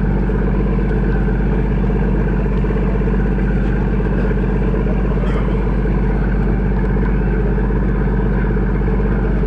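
A passenger ship's engine running with a steady, loud low drone, unchanging throughout, as the ship gets under way.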